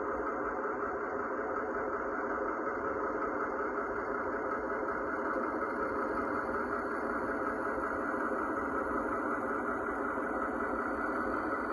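Sound module of a Piko garden-railway model of a DR class 110 diesel locomotive, playing a steady diesel engine running sound through its small speaker as the model creeps slowly forward.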